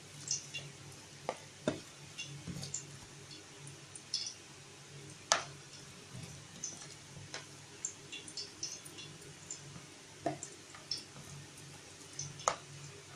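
Hands mixing raw chicken drumsticks with spice powders and ginger-garlic paste in a bowl to marinate them: irregular short clicks and soft wet handling sounds.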